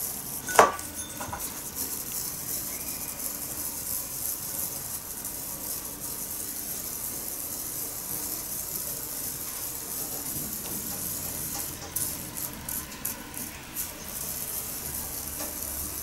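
Bamboo matcha whisk (chasen) swishing tea in a ceramic bowl, a steady brushing hiss, with a single knock against the bowl about half a second in and a few light clicks later. The tea is not frothing up.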